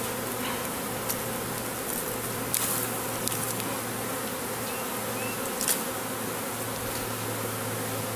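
Steady hum of a honeybee swarm flying around and crowding into the entrance of a top bar hive. A few sharp clicks sound over the hum, the loudest a little past halfway.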